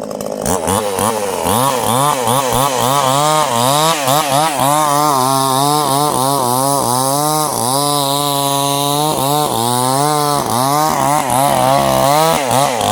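Chainsaw running at high speed while cutting sengon wood, its engine note wavering up and down continuously under the load of the cut.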